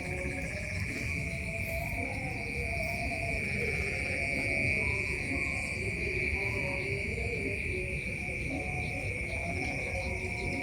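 Night-time insects, crickets or similar, in a continuous high trill, with lower wavering tones running beneath.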